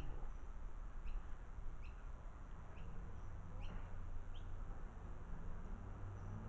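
A bird chirping repeatedly outdoors, short high calls about once a second, over a low rumble.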